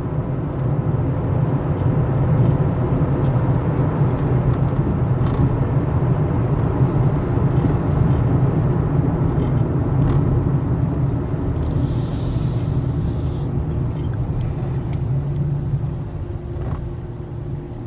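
Steady low rumble of a car's engine and road noise heard from inside the cabin while driving. A short hiss about two-thirds of the way in.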